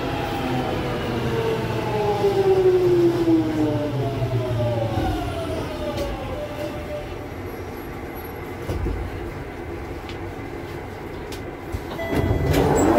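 Jubilee line 1996-stock tube train's traction motors whining and falling in pitch over several seconds as the train slows, over the rumble of the wheels on the track. It then runs more quietly, with a brief louder burst near the end.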